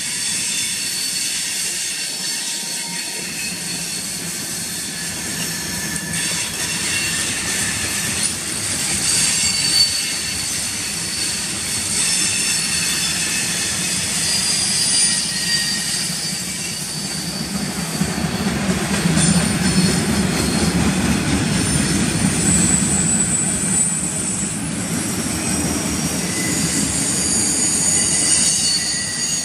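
Freight train tank cars and autorack cars rolling past on the rails: a steady rumble and clatter of steel wheels, with high-pitched wheel squeals over it. The low rumble grows heavier in the second half.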